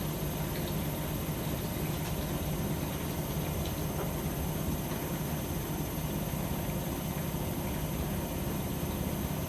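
AEG Öko-Lavamat 73749 washing machine running a 95°C boil wash, with a steady low hum and a few faint clicks.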